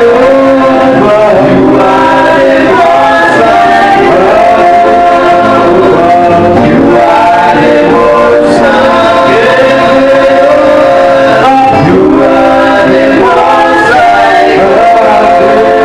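Gospel worship music with singing, a male voice to the fore and other voices joining, over steady instrumental accompaniment.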